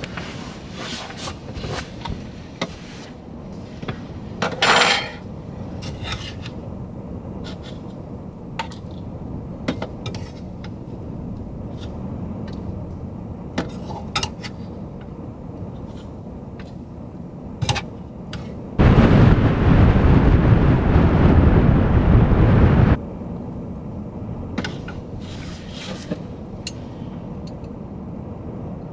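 Dishes and cutlery clinking and scraping in a series of short, scattered knocks. About nineteen seconds in, a loud steady rushing noise runs for about four seconds and cuts off suddenly.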